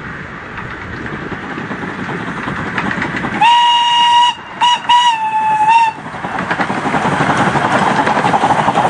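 Miniature steam locomotive whistling: a long high blast, a short pip, then a second long blast. Around it the train's running noise grows louder as it approaches, with a quick rhythmic beat.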